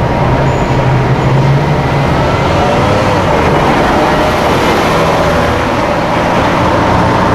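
A car engine running steadily close by, holding an even pitch without revving.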